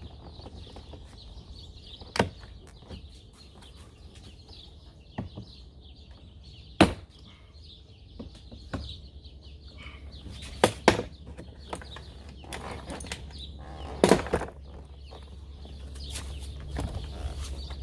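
Plastic door-panel retaining clips popping loose as a car's interior door trim panel is pried off with a flathead screwdriver: about seven sharp snaps spaced a few seconds apart, two in quick succession about eleven seconds in, over a steady low hum.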